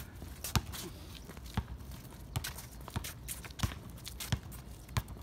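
Basketball bouncing on a concrete court, with players' footsteps: a string of sharp, uneven thuds, a little more than one a second.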